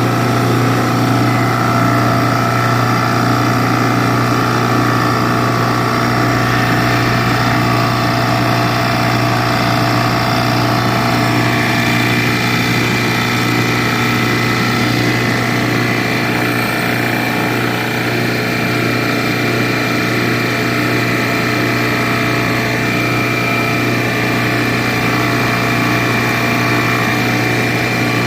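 JB F6 refrigerant recovery machine running steadily, its compressor humming as it draws the last refrigerant vapor out of the system.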